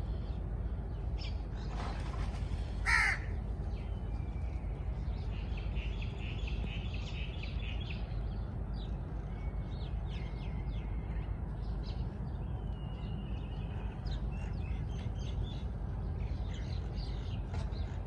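Birds calling: one loud harsh call about three seconds in, with a fainter one just before it, then scattered short chirps and twittering. A steady low rumble runs beneath.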